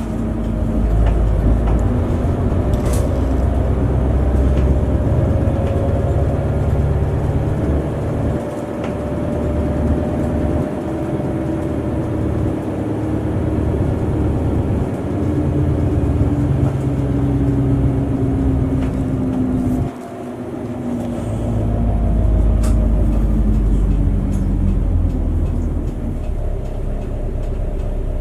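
Shuttle bus driving, heard from inside the passenger cabin: a steady low engine and road rumble with engine tones that slowly rise and fall with speed, and a brief drop in level about twenty seconds in.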